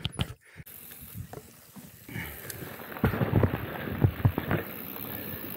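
Mountain bike knocking and rattling close to a helmet camera: a few sharp knocks at the start, a loud cluster of knocks and rattles about three seconds in, then a steady rush of riding noise with wind on the microphone.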